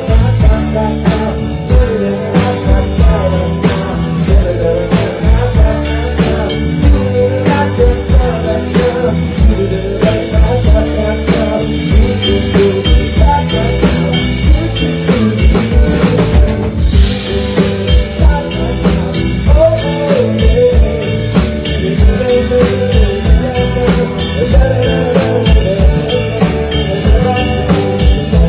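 Live rock band playing: a drum kit keeping a steady beat under acoustic and electric guitars, loud through the stage sound system.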